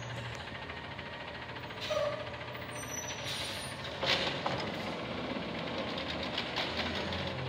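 Automated side-loader garbage truck's diesel engine running steadily as the truck creeps up to a bin, with two short bursts of noise about two and four seconds in.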